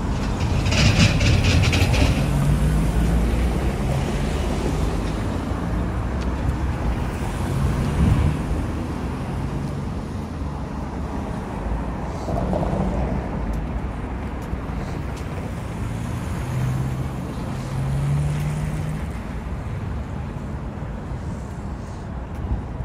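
Street traffic: cars passing one after another on a multi-lane road, engine hums rising and fading several times over a steady low rumble.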